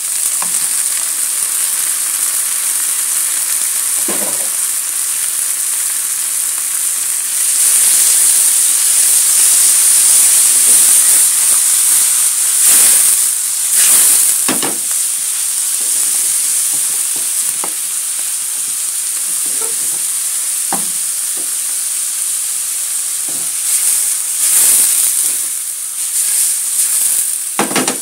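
Raw shrimp sizzling in hot oil in a wok with sliced shallots and chilies, stirred with a wooden spatula that scrapes and knocks against the pan. The sizzle is a steady hiss that grows louder for a stretch in the middle and again near the end.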